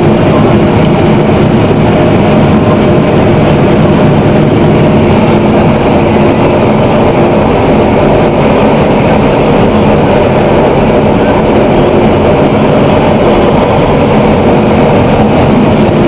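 Claas Lexion combine harvester running steadily under load while harvesting corn and unloading grain, heard from inside its cab: a loud, constant machine drone with a steady engine hum.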